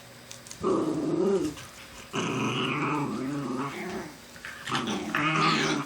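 Black Shiba Inu growling in three drawn-out bouts, the middle one the longest.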